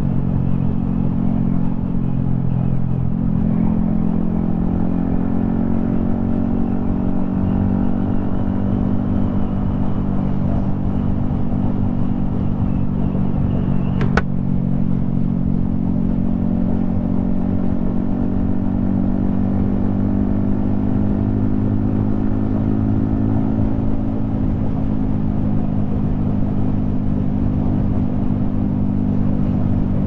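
Yamaha XSR155's single-cylinder engine running under way at a fairly steady cruising pace, with a rumble of wind noise underneath. The engine note rises a little about three seconds in, then holds steady. A single sharp click comes about halfway through.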